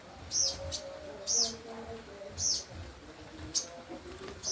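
Kept songbird singing actively, giving loud, sharp, high chirps about once a second, each a short arched note, with a few briefer ticks between them.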